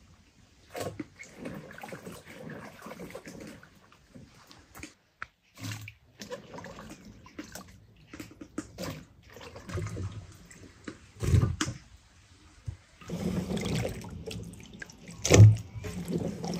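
Water splashing and trickling, with irregular handling knocks and clatters; there is a louder thump about eleven seconds in and another near the end.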